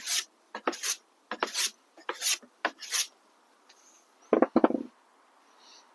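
Block plane shaving a wooden handle: about five quick strokes, each a short rasping swish, followed a little past four seconds in by a few knocks.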